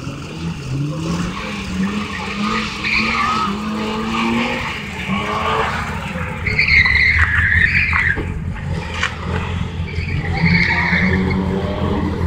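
A car driven hard round a slalom course: its engine revs up, climbing in pitch over the first few seconds, then the tyres squeal as it corners, loudest about six to eight seconds in and again near eleven seconds.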